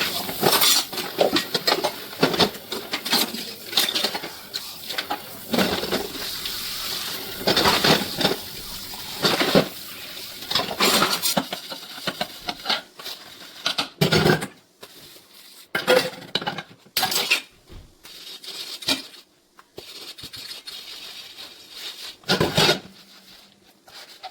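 Dishes, pots and cutlery clinking and clattering as they are handled, irregular knocks and clinks over a steady hiss through roughly the first half, then sparser separate knocks.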